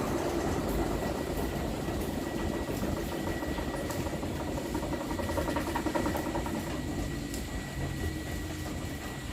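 Electric fan running: motor hum and rushing air with a thin steady whine, gradually getting quieter.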